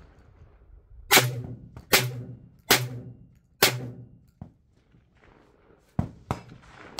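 Four shots from a Tokarev TT12 semi-automatic 12-gauge shotgun in quick succession, about 0.8 s apart, firing light 1145 fps birdshot loads with the gun held loosely on the shoulder; the action cycles between each one. A faint click follows, then two sharp knocks near the end.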